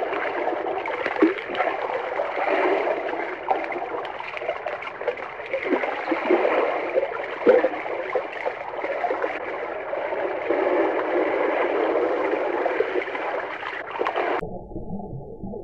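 Underwater water sound: bubbling and gurgling with many small pops and squeaks. Near the end it cuts suddenly to a duller, muffled underwater sound.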